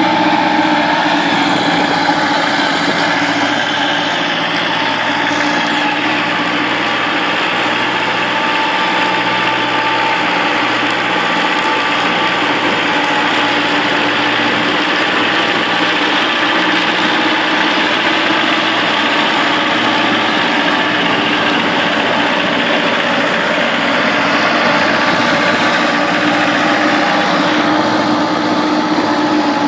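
Gutbrod 2600 DS garden tractor's engine running steadily under load, with its mid-mounted mower deck cutting grass.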